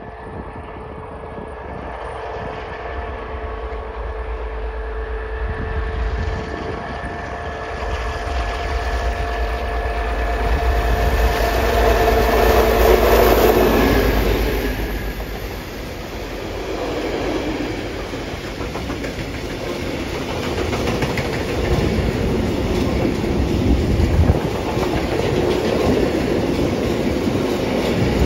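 Ludmilla diesel locomotive approaching under power, its engine note with steady whining tones growing louder and peaking as it passes about halfway through. Then a freight train of open wagons and tank cars rolls past, its wheels clattering over the rail joints.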